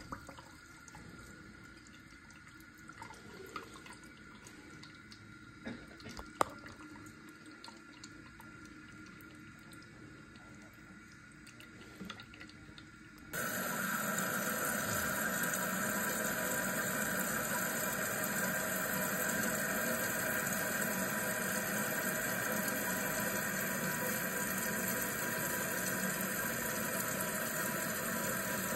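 Toilet tank filling through its fill valve: a few faint clicks, then about halfway through, water starts suddenly and runs steadily with a hissing rush.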